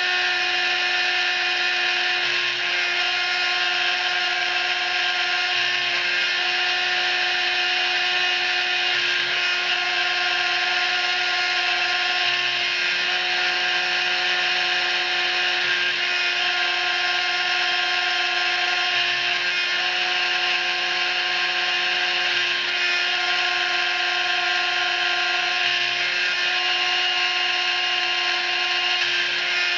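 CNC machine's spindle running while a small end mill cuts a slot into a hard drive platter. It makes a steady high whine with several held tones, and the tone shifts slightly about every two to three seconds.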